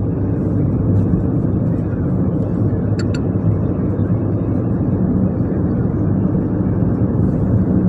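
A car driving, heard from inside the cabin: a steady drone of engine and tyre noise, with two faint clicks about three seconds in.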